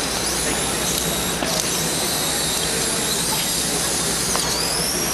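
Electric drive motors of a small competition robot whining, the pitch dipping and rising as it moves, over a steady background din.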